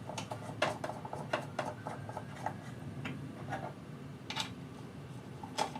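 Two knobs being threaded back onto the studs to hold the cut-wheel cover of an arrow saw: a string of quiet, irregular light clicks and ticks.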